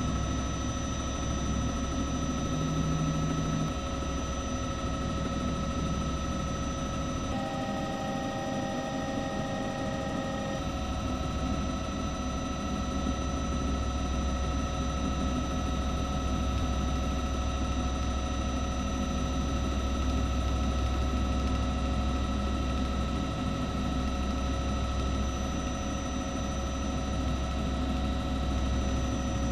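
Steady drone of a helicopter's engine and rotors heard from on board, with several constant whining tones over a low rumble. The low rumble drops away for about three seconds around a quarter of the way in, then returns.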